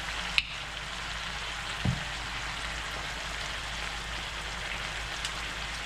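Chicken and a reducing soy sauce, vinegar and honey liquid sizzling steadily in an enamelled cast-iron Dutch oven. A sharp click comes about half a second in and a low knock at about two seconds.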